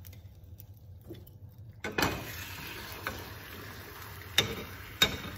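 Potato omelette sliding off a plate into a hot oiled frying pan, starting to sizzle about two seconds in and frying steadily after that. A spatula clacks sharply against the plate or pan twice near the end.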